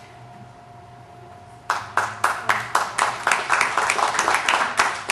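Hands clapping close to the microphone in a quick, even rhythm of about four claps a second, starting about a second and a half in after a quiet stretch with a faint steady hum.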